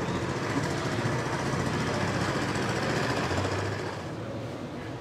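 Street traffic with a motor vehicle engine running, a steady rough rumble that drops away about four seconds in.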